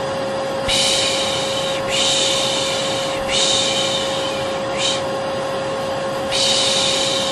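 Vacuum cleaner running steadily with a constant whine, overlaid by a person's soothing 'shh' shushing, about a second per shush, repeated four or five times: a white-noise lullaby for settling a baby to sleep.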